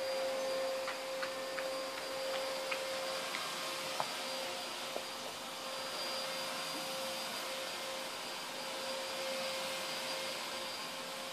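A steady machine drone with a constant whine, like a household appliance running, with a few soft clicks in the first few seconds.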